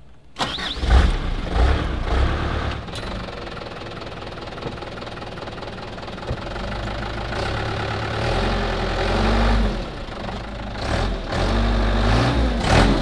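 Light truck's diesel engine cranked on the starter and firing about half a second in, then running with a rough, knocking idle. The revs rise twice later on. It is a starter-battery-weak engine that has sat unused.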